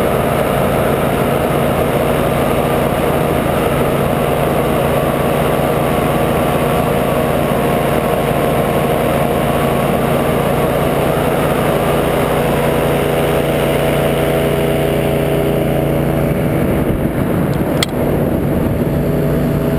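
Silent Twin paramotor trike's engine and propeller running steadily in flight, a constant drone with even overtones. A single sharp click sounds near the end.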